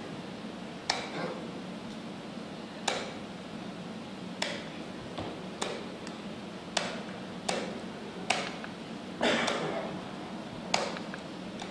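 Sharp wooden clacks of chess moves played quickly in turn, about nine in all: pieces set down hard on a wooden board, with one longer scrape-and-clack about three-quarters of the way through.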